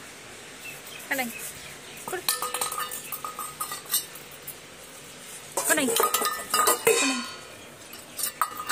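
Metal dog bowl clanking and ringing on a concrete floor as a German Shepherd puppy knocks it about with its mouth: a run of clanks about two seconds in, then a louder clatter a few seconds later.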